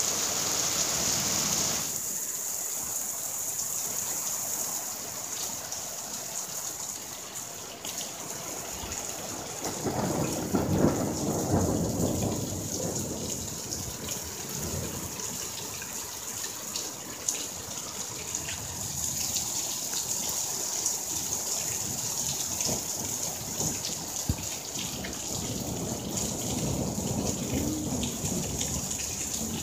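Heavy rain falling on an asphalt-shingle roof: a steady hiss with scattered drop ticks, and a louder low swell about ten seconds in.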